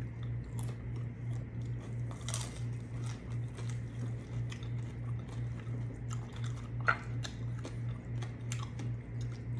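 Close-up chewing and crunching of crisp battered fried fish and shrimp, with many small clicks and mouth sounds and a sharper crunch about seven seconds in. A steady low hum runs underneath.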